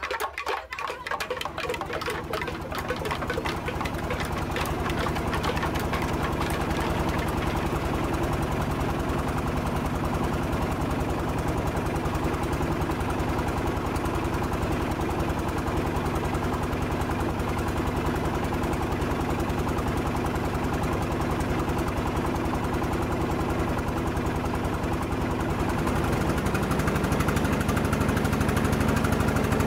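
A small boat engine running steadily with an even, rapid knocking beat, getting a little louder near the end.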